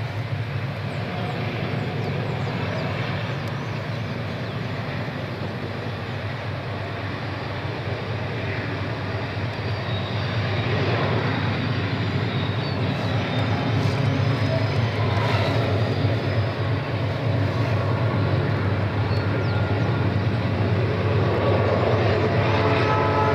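Diesel-electric locomotives of an empty freight train with distributed power working at full throttle up a steep grade: a steady low engine rumble that grows louder about halfway through as a locomotive draws nearer. A locomotive horn starts to sound at the very end.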